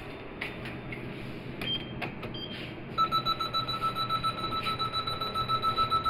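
Mitsubishi lift car's beeper sounding a fast, steady run of beeps, about five a second, from about three seconds in while the car doors close. Before it come a few light clicks and two short high beeps from the car's buttons.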